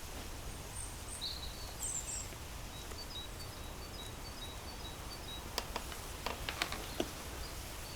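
Outdoor ambience: a steady low background noise with small birds chirping, several short calls early on, then a quick run of little chirps. A few light clicks come near the end.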